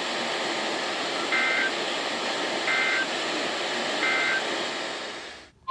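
Weather radio static hiss with three short warbling data beeps about 1.4 s apart: the EAS/SAME end-of-message bursts that close the flash flood warning. The audio drops out just before the end.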